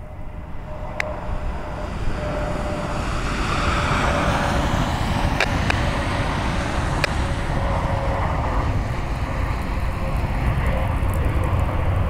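Jet engines of a Frontier Airbus A320-family airliner passing close by. The engine noise builds over the first four seconds and then holds steady, with a steady whine running through it.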